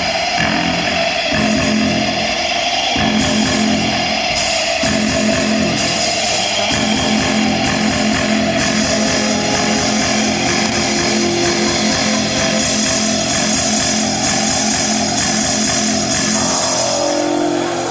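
Loud rock music with guitar, its chords changing every couple of seconds.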